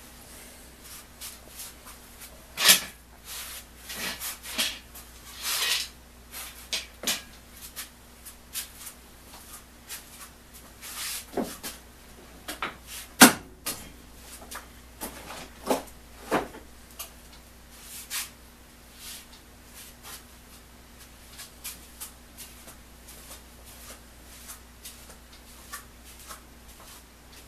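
Irregular clicks and knocks, the loudest a few seconds in and another about halfway, with a few short hisses early on, over a steady low hum.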